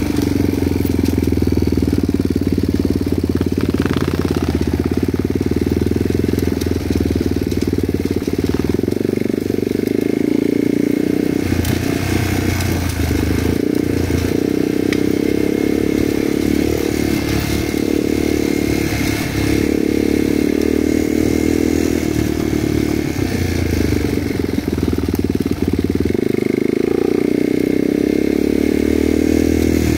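Motorcycle engine running steadily, its note holding at a fairly even pitch with small changes.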